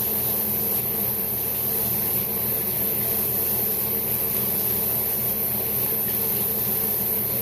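Steady machine hum with a constant high hiss, unchanging throughout.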